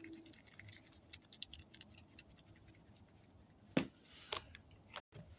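Stick stirring thick fiber-filled polyester resin filler in a cup: rapid, irregular sticky clicking and crackling, with one sharper knock a little before the end.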